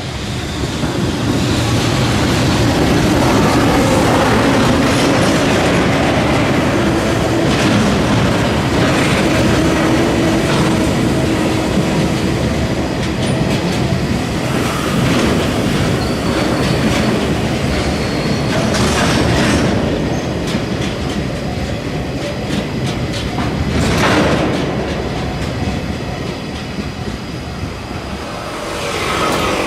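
Freight train of oil tank wagons rolling through a level crossing: a long, steady rumble with wheels clacking over rail joints and, now and then, a brief squeal of wheels.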